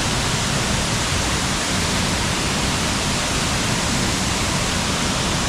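Steady rushing of a large waterfall: one even, unbroken noise.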